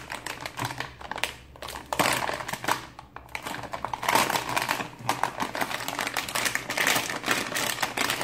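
Metallised anti-static plastic bag crinkling and crackling as it is pulled open and handled, a dense run of small crackles that swells and fades several times.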